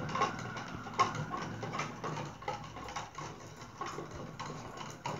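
Spoons clinking and scraping against the sides of two glasses of water as soap is stirred in: irregular light ticks over a low steady hum.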